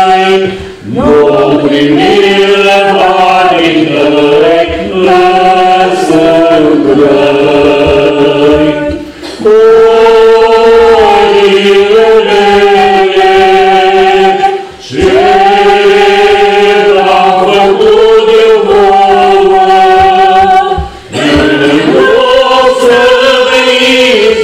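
A choir singing a Romanian Orthodox pricesne, a devotional hymn, in long held phrases with short breaks between them.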